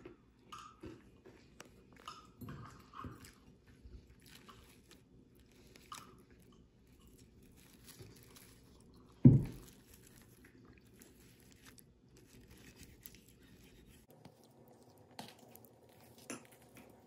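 Close-up eating sounds: chewing, and a fork cutting into fried eggs on a paper plate, with many small scattered clicks and taps. About nine seconds in there is a single loud thump.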